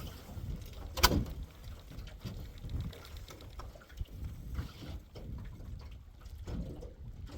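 Water lapping and splashing around a small fishing boat, with a low rumble throughout and one sharp knock about a second in.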